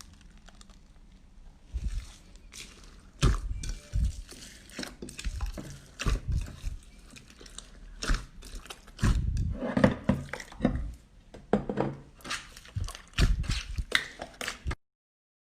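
Slime being handled and poked with the hands: irregular clicks and soft thuds that come and go. The sound cuts off suddenly near the end.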